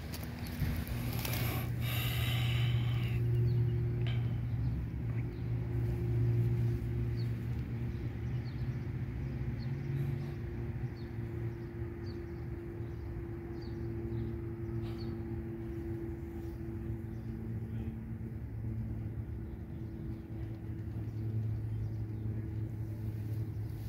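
Steady low rumble and hum of a running engine or machine, with a brief rustle near the start and faint scattered ticks.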